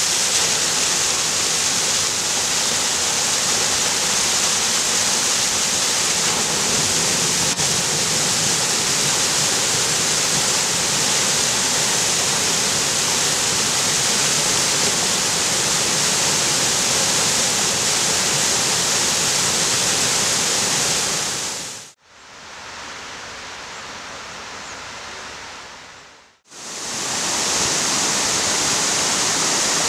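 Rushing water, a steady loud hiss of falling or tumbling water. About two-thirds of the way through it fades out to a quieter, duller wash for a few seconds, then fades back up to full level.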